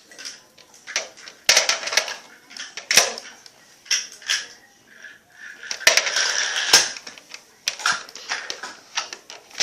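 Irregular light clicks, taps and short scrapes of Play-Doh and small plastic pieces being handled on a tabletop, with several sharper knocks scattered through.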